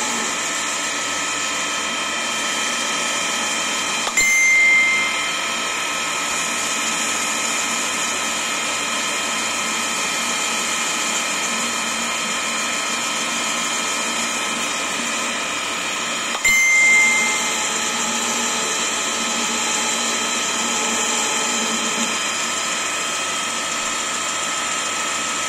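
Intos FNGJ20 toolroom milling machine running with a D'Andrea TA120 boring and facing head spinning on its spindle: a steady machine whine made of several fixed tones. Twice, about four seconds in and again about sixteen seconds in, a brief louder burst with a high ringing tone lasts about a second.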